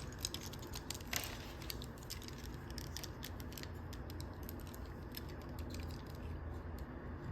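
Plastic parts of a Transformers Studio Series Ratchet action figure clicking and rattling as it is handled during transformation: many small clicks, one louder about a second in, thinning out after the first few seconds.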